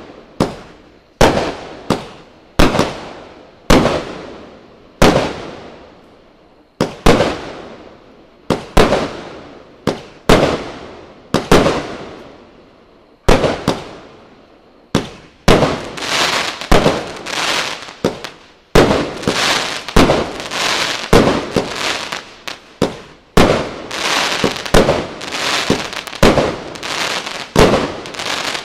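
Volcano 'Patagonia' 36-shot firework cake firing its shots one after another: sharp bangs roughly every second and a half, each with a long echoing tail. About halfway through the shots come faster and overlap into a denser, continuous volley.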